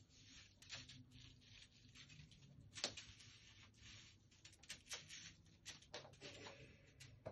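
Faint, irregular scratching and light tapping of a kitten's paws and claws moving about on a wooden floor, with one sharper tap about three seconds in.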